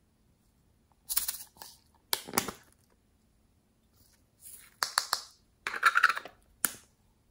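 A plastic slime container being opened by hand and pink glitter slime pulled out of it: several short crackling, rustling bursts of plastic and slime handling, the loudest near the end.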